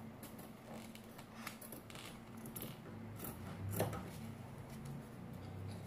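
Scissors snipping through thin fabric along a paper pattern, a run of short crisp cuts about two a second, one louder than the rest about four seconds in.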